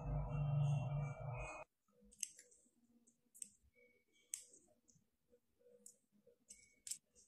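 Metal tweezers clicking and scraping against a small metal vape coil head, an OXVA Origin X 0.2 ohm coil being rewicked with cotton, in scattered light clicks. Background music cuts off abruptly about a second and a half in.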